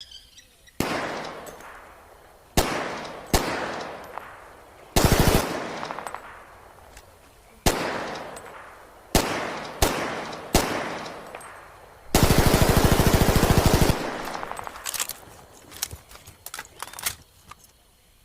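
M1928A1 Thompson submachine gun in .45 ACP firing: single shots and a short burst, each with a long echoing tail. About 12 seconds in comes a sustained full-auto burst of nearly two seconds, followed by a scatter of quieter sharp cracks.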